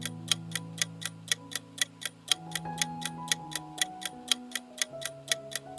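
Clock-ticking countdown-timer sound effect, steady at about four ticks a second, over soft held background tones that change every second or two.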